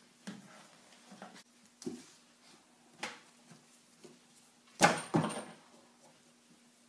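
Scattered knocks and clacks from handling a tie-down strap and its buckle against the cooler, with two louder knocks a little before and after five seconds in, over a faint steady hum.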